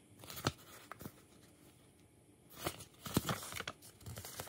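A paper instruction leaflet being handled and unfolded: a couple of soft taps, then a short run of paper rustles and crinkles just after halfway.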